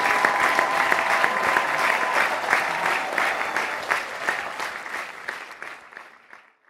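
Audience applauding with dense, rapid clapping that fades out over the last few seconds.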